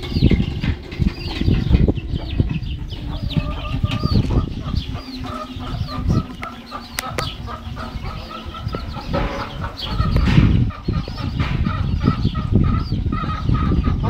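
A hen and her chicks calling: the chicks peep in many short, high, falling chirps, most thickly in the first few seconds, and a steady run of short clucking notes follows. A low rumble sits on the microphone underneath.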